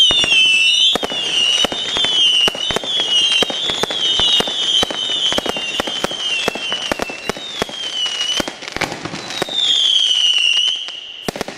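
Fireworks Crazy 100-shot high-noise Roman candle barrage firing: a rapid run of bangs and crackles under several overlapping high whistles that waver around one pitch. Near the end one last whistle slides down in pitch and the shots briefly thin out.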